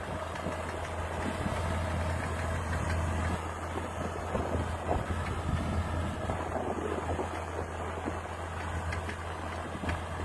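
Fiat 1000 DT tractor's diesel engine running with a steady low drone.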